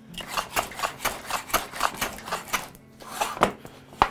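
Hand plane run on a shooting board, cutting wood in a quick series of short strokes, about four or five a second, then a pause and two sharper strokes near the end.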